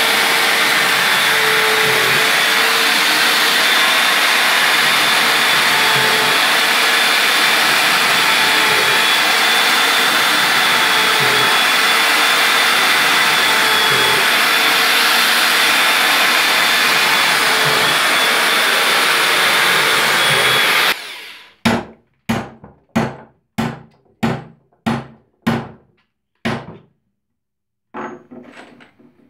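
A hand-held electric power tool runs steadily and cuts off abruptly about three-quarters of the way through. A small hammer then taps on a cimbalom's frame: about nine sharp strikes, roughly two a second, each ringing briefly, and two fainter taps near the end.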